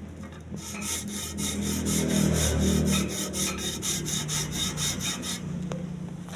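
Fast back-and-forth scraping strokes, about four or five a second, of a two-stroke engine part being rubbed flat on an abrasive by hand to make it seal tight. The strokes stop about five seconds in, followed by a couple of sharp clicks.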